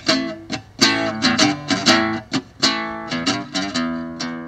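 Acoustic guitar music, chords strummed and notes plucked in quick succession, each ringing on.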